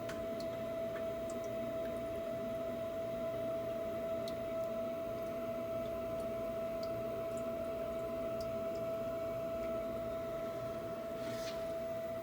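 Propane-converted Navien NHB110 boiler running with a steady high-pitched whine over a low rumble. One contractor put the whine down to the fuel mixture, another to water flow through the boiler.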